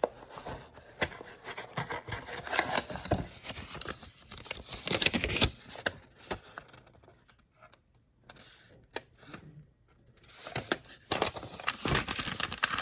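Paper and cardboard packaging being handled: rustling and crinkling with small clicks and scrapes as the manual and contents are taken out of the box, quieter for a few seconds past the middle.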